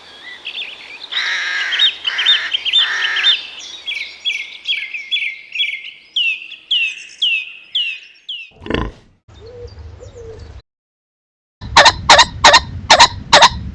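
Small songbird singing a run of short downslurred notes, about three a second, for several seconds. Near the end, after a brief pause, comes a loud series of harsh calls, about two a second.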